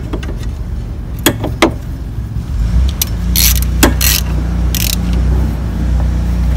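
A socket ratchet with an extension turning a bolt: a few sharp metal clinks in the first two seconds, then short runs of ratchet clicking from about the middle, over a steady low hum.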